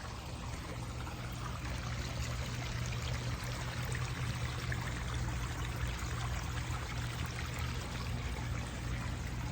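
Water pouring and trickling steadily over the rocks of a pondless waterfall and stream.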